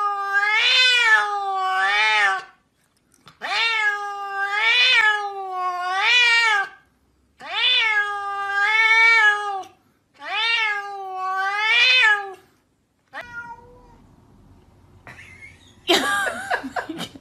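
A domestic cat meowing in four long, drawn-out calls, each two to three seconds long with a wavering pitch, separated by short pauses. Near the end come a few short, higher cries.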